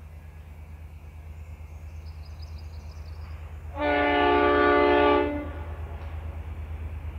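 V/Line N class diesel locomotive sounding its horn once, a chord of several tones held for about a second and a half, about four seconds in. Under the horn is the low, pulsing rumble of its two-stroke EMD diesel engine, slowly growing louder as the train approaches.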